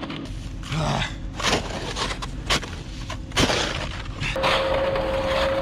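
Snow shovel scraping and chopping into packed snow in several separate strokes, digging out a van stuck in snow. A steady tone comes in a little past the middle and holds.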